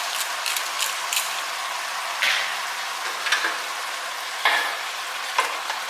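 Cabbage and vegetables sizzling as they stir-fry in a deep nonstick pan, with a quick run of light ticks in the first second. After that come four louder scrapes of a wooden spatula and a nylon turner tossing the food, about one a second.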